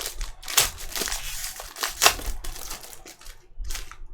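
Plastic wrapper of a 2019-20 Panini Mosaic basketball card pack being torn open and crinkled by hand, in irregular crackles.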